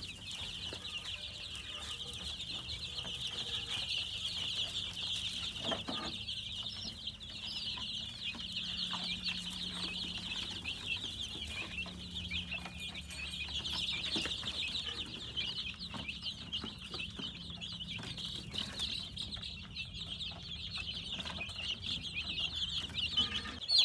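A flock of young chicks peeping continuously: a dense chorus of many overlapping short, high cheeps.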